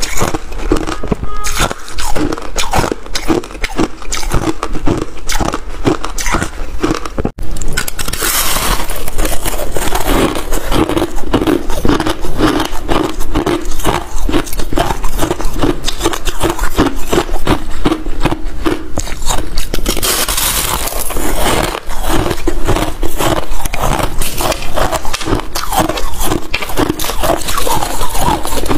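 Close-miked crunching and chewing of ice: crushed ice at first, then, after a break about seven seconds in, freezer frost being squeezed and bitten with a dense, crackly crunch.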